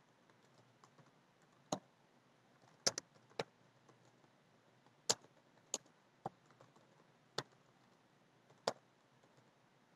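Faint, scattered keystrokes on a computer keyboard: about nine sharp clicks at irregular intervals, a couple of them in quick pairs.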